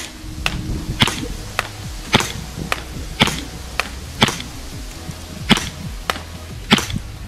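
Poseidon FMG-9 gas blowback airsoft replica firing single shots on semi-auto, about one sharp crack a second, seven in all, each followed by a fainter tick. Background music runs underneath.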